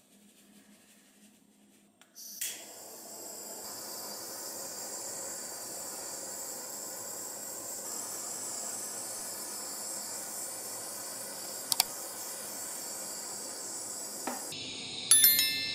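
Kitchen blowtorch flame lit with a pop about two seconds in, then hissing steadily as it caramelizes the brown-sugar topping of a crème brûlée. Near the end the hiss changes and a few sharp clicks sound.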